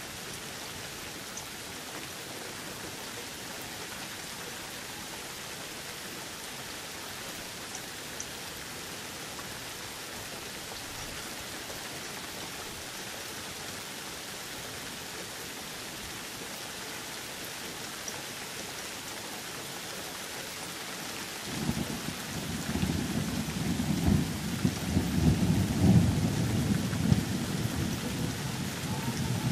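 Steady rain falling. About twenty seconds in, a low rumble of thunder begins and rolls on, loudest a few seconds after it starts.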